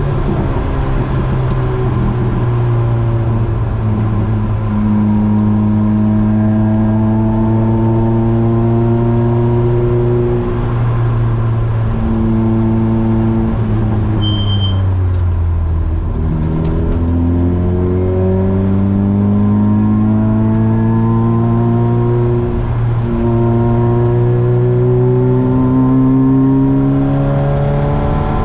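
Opel Speedster's 2.2-litre four-cylinder engine with a Larini decat exhaust, heard from on board, pulling and easing off on a winding road. Its pitch repeatedly climbs and drops back, sinks lowest about halfway through, then climbs again.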